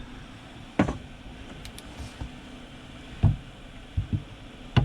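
Chinese 12 V diesel heater's blower fan running steadily before ignition, while the glow plug warms up. A few irregular knocks and clunks of handling come over it.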